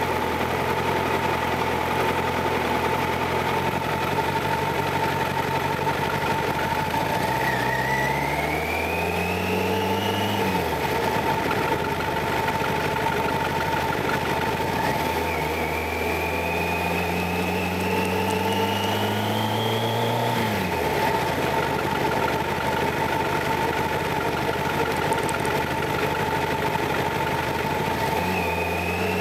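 Kawasaki ZX-11's inline-four engine running at low street speed, twice pulling up steadily in pitch over a few seconds and then dropping back sharply as the throttle closes, with a third pull starting near the end.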